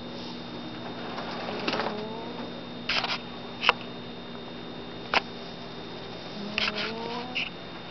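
Domestic cat snoring in its sleep: two pitched snores, about a second and a half in and again near the end, each rising in pitch. The owner puts the snoring down to the cat being overweight. A few sharp clicks fall between the snores.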